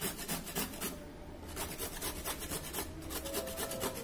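Carrot being grated on a flat stainless steel hand grater: quick rasping back-and-forth strokes, several a second, with two short breaks.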